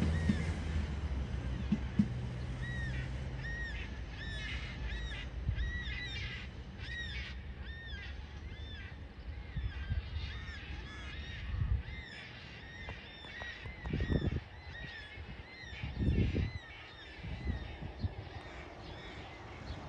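Birds calling over and over in short rising-and-falling chirps, over the low rumble of a departing diesel freight train that fades away in the first few seconds.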